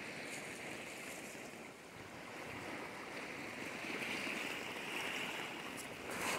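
Shallow water washing and trickling gently and steadily, briefly louder near the end.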